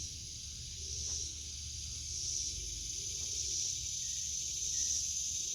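Steady high-pitched chorus of insects that swells and fades about once a second, over a low rumble.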